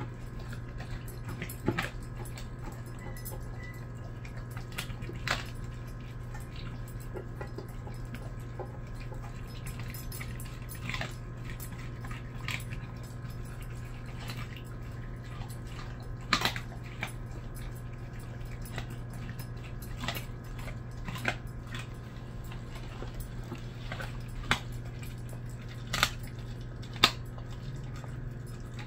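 Dog chewing and crunching a raw drumstick in a stainless steel bowl, with scattered sharp cracks and clinks over a steady low hum.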